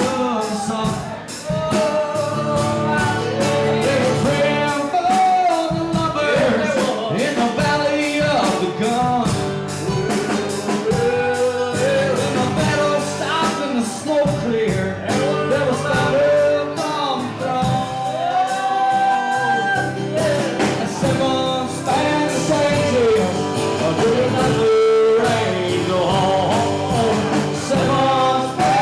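Live band music: a singer over guitar and bass with a steady drum beat.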